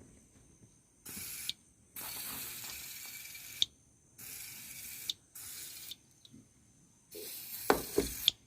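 WD-40 aerosol can spraying onto a car door latch in five short hisses, lubricating the old, sticking lock. A few knocks come during the last, longest spray.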